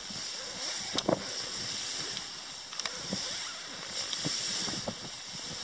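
Outdoor field ambience: a steady high-pitched hiss over low wind rumble on the microphone, with scattered knocks and rustles.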